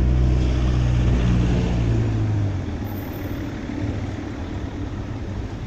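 Low, steady engine-like rumble, as of a motor vehicle, easing off about two and a half seconds in.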